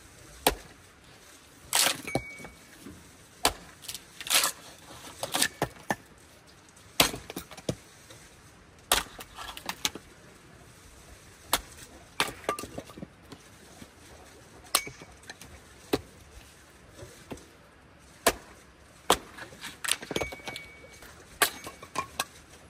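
Hatchet splitting firewood into kindling on a wooden chopping block: sharp, irregular chops about every second or two, with lighter knocks and clinks of sticks between them.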